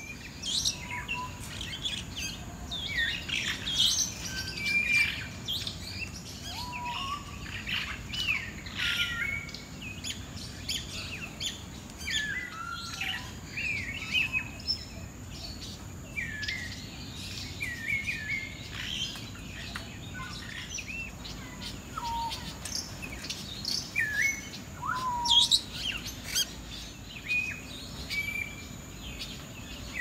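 Many birds chirping and whistling together: short overlapping calls and quick whistles that sweep up or down, with no pause.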